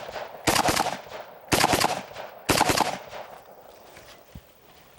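Inter Ordnance STG-2000C, a Kalashnikov-pattern rifle in 7.62x39, firing: three loud shots about a second apart, with the tail of another just as it begins. After that it falls much quieter, with only a faint click or two.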